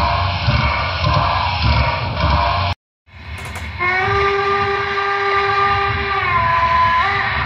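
An HO-scale Broadway Limited Paragon3 N&W class A model's onboard sound: a low rumbling running sound, a brief cut-out about three seconds in, then a long steam whistle blast from about four seconds in, its pitch dipping briefly near the end.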